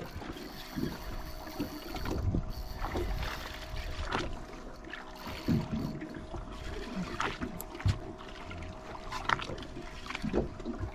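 On-deck sound of a fishing boat at sea: a steady machinery hum with a thin steady tone, water splashing along the hull, and a few scattered knocks.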